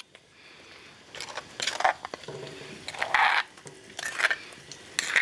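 A metal spoon scraping red chile sauce out of a stone molcajete into a clay pot of browned pork, in about five short strokes.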